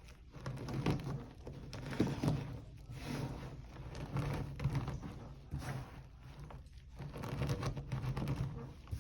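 Hard blocks of gym chalk being crushed, crunching and crumbling in irregular bursts, loudest about one and two seconds in.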